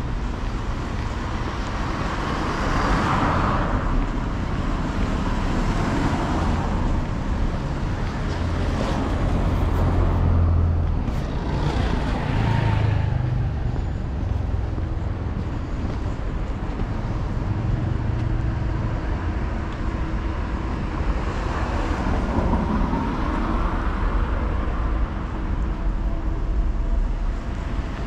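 Road traffic: several cars pass one after another, each swelling and fading, over a steady low rumble.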